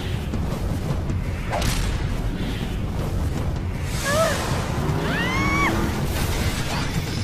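Cartoon action soundtrack: driving music with whooshes and impact effects. About four and five seconds in come two short pitched cries that rise and fall.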